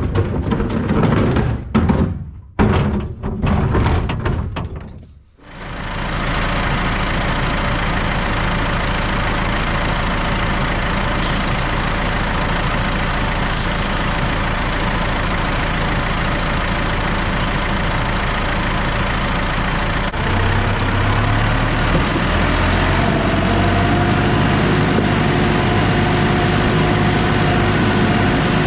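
Tractor engine running steadily, moving the meal bin down to the field. It opens with a few seconds of choppy, broken-up sound; about two-thirds of the way through the engine note steps up a little and a steady whine comes in.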